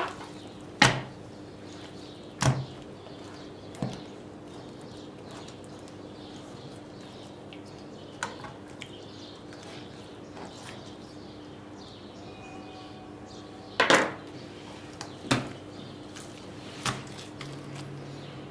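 A knife knocking against a wooden cutting board while raw ribs are trimmed: about seven sharp knocks spread unevenly, the loudest about a second in and near fourteen seconds in. A faint steady hum runs underneath.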